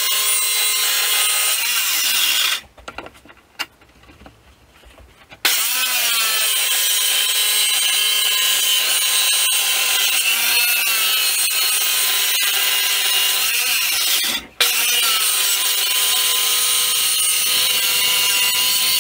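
Circular saw cutting through a hardwood butcher-block countertop. It runs for about two and a half seconds, stops, then starts again and cuts steadily, the motor pitch sagging now and then under load. It drops out briefly and restarts about three-quarters of the way through.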